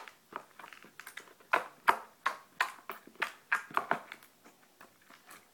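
Blue slime with small dice mixed in being poked and squeezed by hand, giving a quick irregular run of sharp little pops and clicks, about three a second, thinning out near the end.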